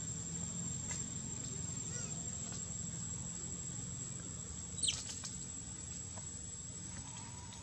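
Steady high-pitched insect drone, like a cricket or cicada, running on unbroken. About five seconds in, one brief shrill squeak sweeps down and back up.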